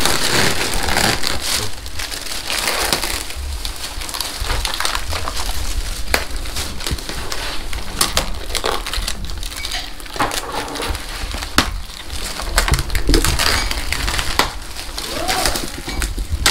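Packaging rustling and crinkling while it is handled, with many sharp clicks and small knocks.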